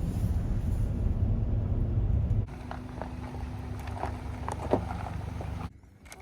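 Low rumbling wind noise buffeting the microphone for about two and a half seconds, then breaking off into a quieter stretch of light rustling and small clicks.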